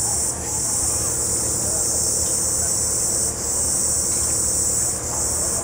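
Loud, high-pitched chorus of crickets trilling continuously, dropping out briefly about three times, over a low steady engine hum.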